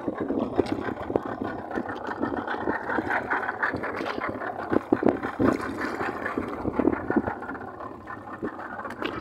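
Small fishing boat's motor running under way, with irregular sharp knocks throughout.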